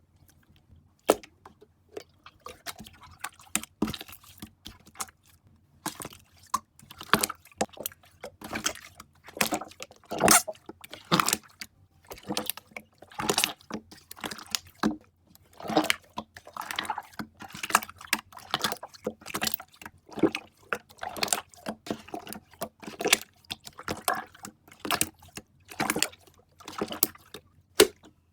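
Slime being squished and poked by hand, making an irregular run of wet clicks and pops, several a second.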